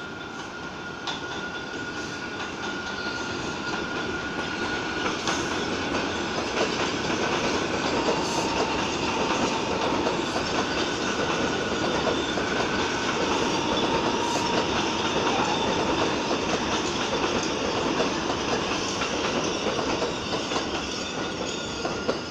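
Subway train on an elevated steel structure running past without stopping: it grows louder over the first several seconds, then a steady rumble and clatter of wheels over the rails, with a thin high wheel squeal coming and going.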